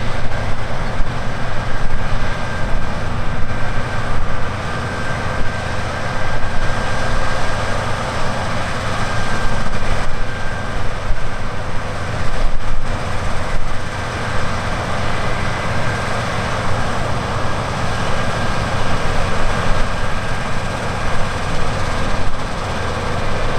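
Large farm harvest machinery running steadily at working speed, a loud even drone with a faint steady whine above it.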